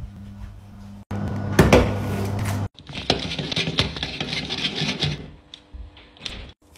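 Aluminium drink cans being handled: a sharp knock, then about two seconds of clinks and crackling rustle that fade out near the end.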